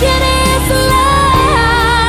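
Background music: a song with a sung melody over steady instrumental backing.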